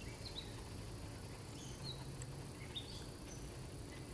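Outdoor ambience: faint, short bird chirps now and then over a steady low hum and a constant high-pitched whine.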